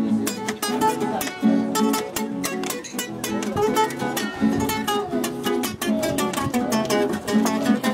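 Two acoustic guitars strumming in a steady rhythm under the held chords and melody of an accordion, an instrumental passage with no singing.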